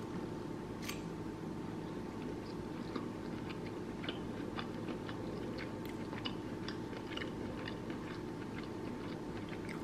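A person chewing a mouthful of sausage, shrimp and cabbage skillet, many small clicks and crunches scattered throughout, over a steady low background hum.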